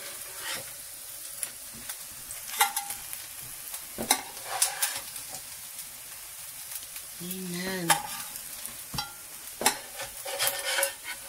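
Black bean burger patties sizzling in a frying pan. A utensil scrapes and clicks against the pan several times as the patties are lifted out.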